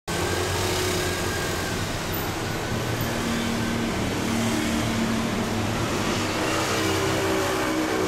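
Steady road traffic: an even rush of passing vehicles with a low engine hum that shifts slowly in pitch.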